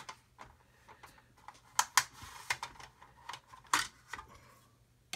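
Small plastic model-kit parts being picked up and set down by hand on a paper instruction sheet over a cutting mat: light clicks and taps, with a few sharper clicks about two seconds and nearly four seconds in.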